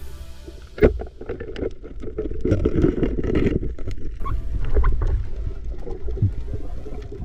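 Underwater sound of a rubber-band speargun firing: one sharp snap about a second in, followed by a low rush of water noise with scattered clicks and knocks.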